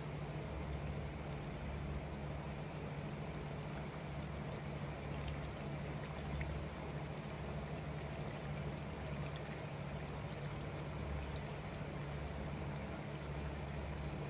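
Twisted glutinous-rice doughnuts deep-frying in hot oil: a steady sizzle and bubbling with a few faint pops, over a steady low hum.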